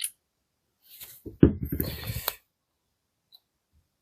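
Small plastic and metal parts of a rivet-nut drill adaptor being handled: a single click, then about a second of clicking and rattling.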